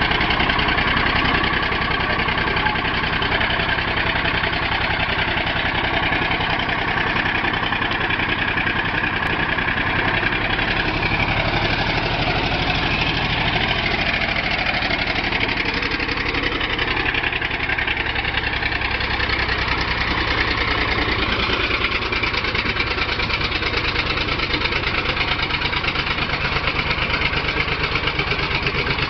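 Scammell Pioneer recovery tractor's Gardner six-cylinder diesel engine idling steadily, with an even low chugging pulse.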